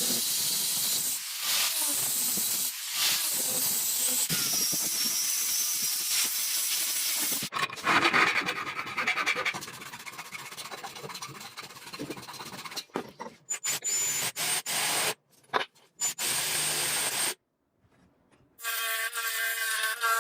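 Workshop sounds from the restoration of a dagger, heard as a series of short cuts: a steady hissing rub of abrasive or file work, broken by abrupt cuts and a brief silence. Near the end comes a steady pitched whine.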